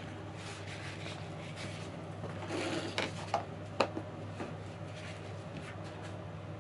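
A few light clicks and taps about three to four seconds in, the loudest near the end of that stretch, over a steady low electrical hum.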